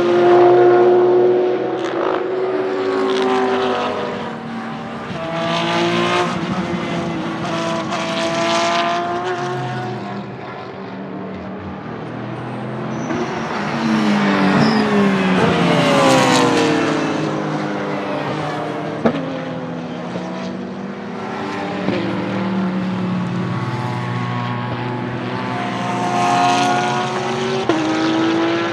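Porsche 991.2 GT3 R race cars' 4.0-litre naturally aspirated flat-six engines at full throttle, the pitch climbing and breaking off again and again as they shift up through the gears. About halfway through a car passes close with a falling pitch, and a single sharp click stands out about two-thirds of the way in.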